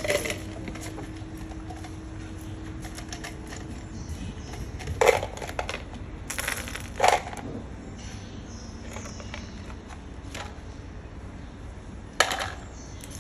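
Small steel ball bearings clattering in a plastic jar and clinking against each other and the concrete floor as they are sorted by hand. There are sharp clatters about five, seven and twelve seconds in, with light clicks between.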